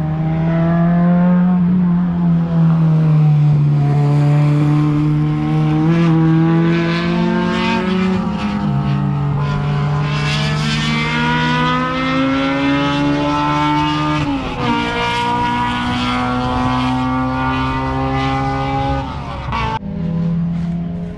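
Race car engine at speed on a circuit, its pitch climbing as it accelerates and dropping sharply at upshifts, twice. The sound changes abruptly near the end.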